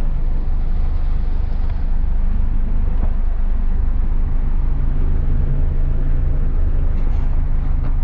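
Motorboat engine running steadily while the boat is under way, a low even hum with a steady rush of wind and water over it.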